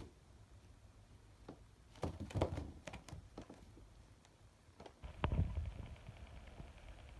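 Soft thuds and scuffs of a cat pouncing and scrambling on carpet after a laser dot, a cluster of knocks about two seconds in and more about five seconds in.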